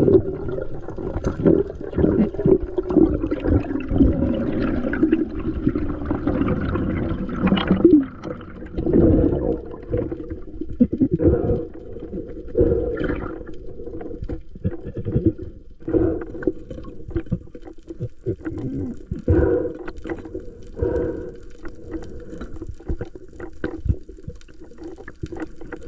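Muffled underwater water sounds: churning, bubbling and gurgling surges as heard by a submerged camera.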